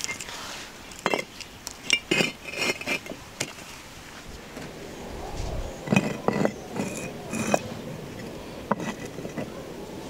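Concrete blocks being set down on top of one another, a series of sharp knocks and clinks with a little scraping as each block is placed and shifted.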